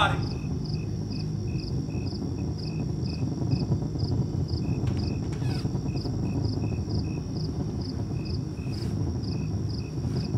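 A cricket chirping steadily, about two to three chirps a second, over a low steady background rumble.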